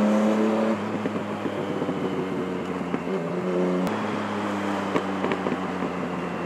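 Yamaha MT-09's three-cylinder engine through a decat M4 exhaust, heard from inside the helmet: it runs steadily, then the throttle closes about a second in and the exhaust crackles with a few sharp backfire pops, the sharpest about four seconds in, before the engine pulls steadily again.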